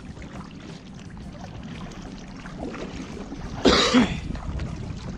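Kayak paddling through floodwater, with a steady sound of water and movement. About three and a half seconds in comes a sudden, short, loud burst of noise with two quick peaks.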